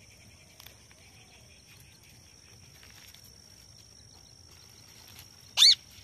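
Steady high-pitched drone of field insects, then near the end a single loud, short, shrill call from an Indian ringneck parakeet.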